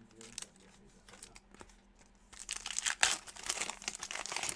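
Crinkling and tearing of a trading-card pack wrapper as it is ripped open, light handling clicks at first and then a dense crackle from about two and a half seconds in.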